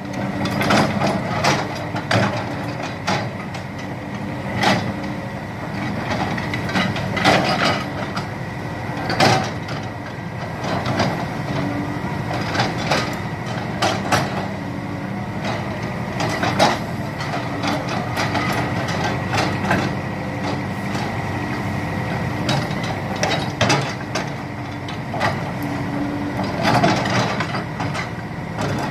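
Cat 320D hydraulic excavator at work, its diesel engine running steadily with a thin whine, while sharp knocks and clanks of the machinery come every second or two.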